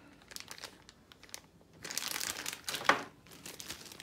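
Clear plastic bags crinkling as they are handled. A few faint rustles come first, then louder crinkling about two seconds in, with one sharp crackle a second later.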